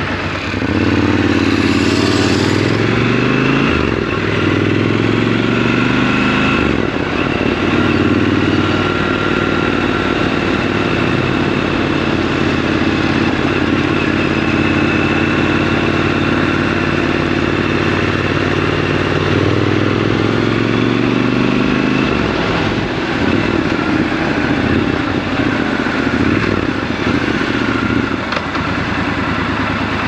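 Triumph Scrambler 1200 XC's parallel-twin engine pulling away, then running at a steady cruise. In the last third it slows and drops back toward idle.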